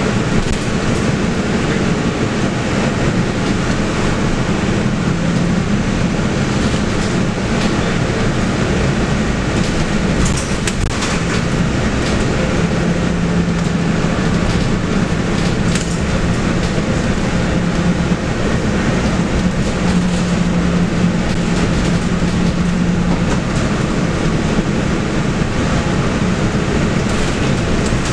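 Interior ride noise of a Mercedes-Benz O500LE bus under way: its 7.7-litre OM936LA six-cylinder diesel and ZF EcoLife automatic drivetrain give a low hum that swells in several stretches, over steady road noise with a few short rattles.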